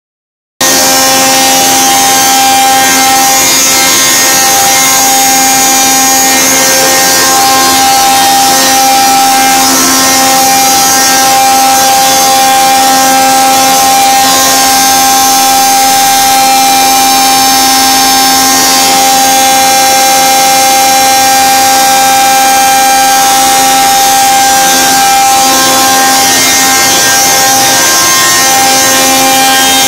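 Rotary collider mill running at about 5000 rpm: a loud, steady mechanical whine with several constant tones over a rushing noise.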